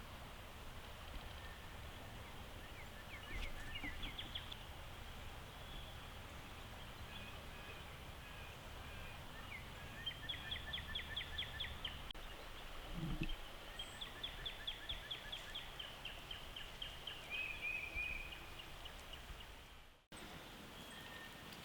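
Birds calling in runs of rapid high chirps, about five a second, several times over a faint steady low background, with one soft low knock partway through.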